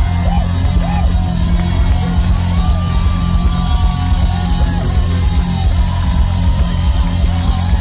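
Live funk-rock band playing loud music with a heavy, steady bass.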